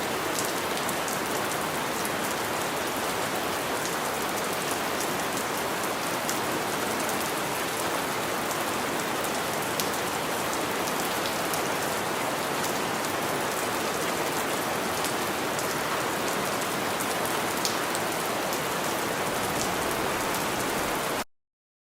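Steady rain falling, an even hiss with scattered sharp drop ticks; it cuts off suddenly near the end.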